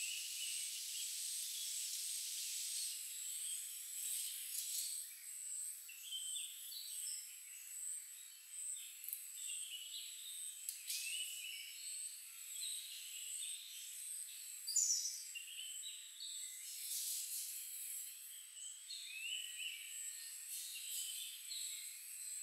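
Forest ambience: a steady, high-pitched insect drone with short bird chirps scattered through it, and one louder, sharper call about fifteen seconds in.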